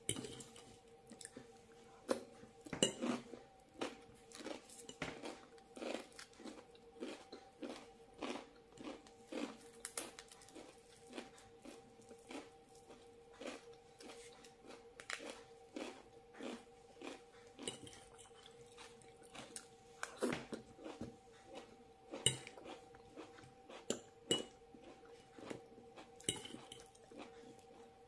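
Chewing and crunching a crisp rice cake spread with avocado and bites of raw cucumber and tomato salad, a crunch every second or so, with a few louder bites.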